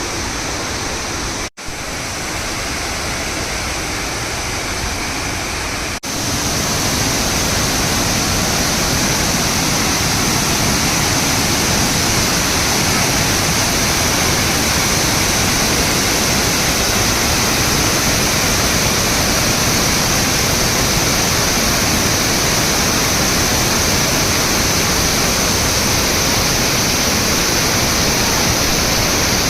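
Waterfall rushing steadily, water pouring over a weir. The sound breaks off for an instant twice, and after the second break, about six seconds in, it is louder.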